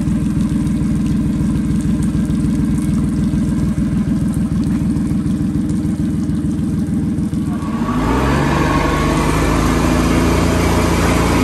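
Rebuilt Suzuki DF60A three-cylinder four-stroke outboard running steadily at idle after its rebuild from a saltwater sinking. About eight seconds in, it is heard running faster under way, with the rush of water added.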